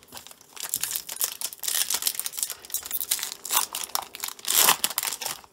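Wrapper of a 2018 Topps Series 1 baseball card pack crinkling and tearing as it is ripped open, a dense crackle that is loudest shortly before the end.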